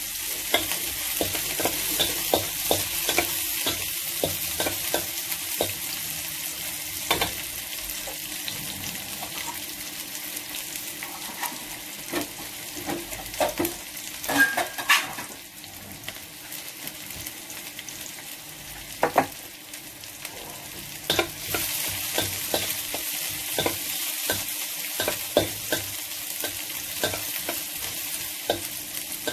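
Diced meat sizzling in hot oil in a metal wok while a metal spatula stirs it, with frequent clinks and scrapes of the spatula against the pan. The sizzle eases through the middle and picks up again about two-thirds of the way in.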